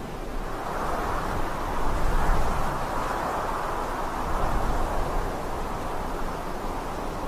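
Steady road and engine noise of a moving vehicle, a constant rushing sound with a low rumble that grows a little louder about a second in.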